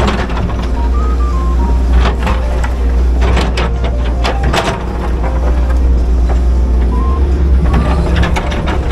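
Excavator's diesel engine running steadily with a deep hum, with several sharp knocks and rattles from the machine at work. A faint background music melody plays over it.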